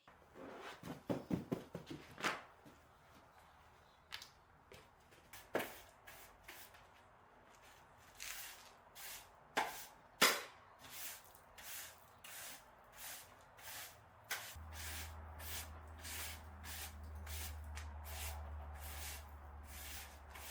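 Knocks and clicks of objects being handled, then a run of short, regular swishing strokes about two a second, with a steady low hum coming in about two-thirds of the way through.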